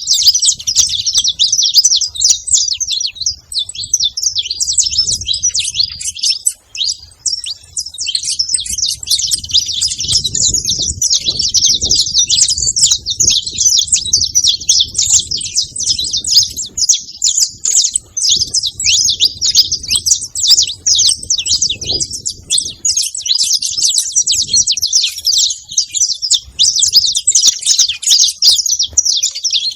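Saffron finch chirping and singing without a break: a dense run of quick, high notes.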